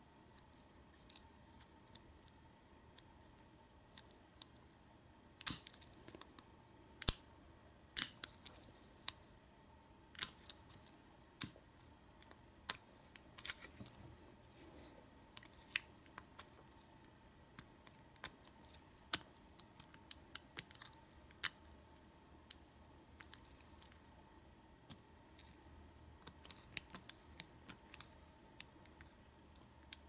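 Small irregular metallic clicks and scratches from a Peterson .018 Hook 3 and a .040 pry-bar tension tool working the pin stack of an American Lock 1100 padlock. Some clicks come singly and some in quick clusters: pins setting at the shear line under tension.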